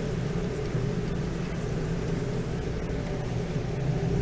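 Steady low mechanical hum of background machinery, unchanging throughout.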